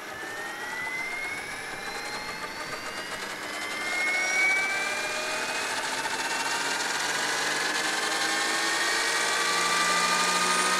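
Giant-scale Airwolf RC model helicopter spooling up on the ground: a whine from its drive and main rotor that rises steadily in pitch, getting louder about four seconds in.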